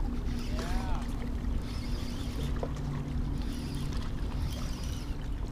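Steady low hum, like a distant engine, under wind on the microphone, with a faint short rising chirp about a second in and a small click about halfway through.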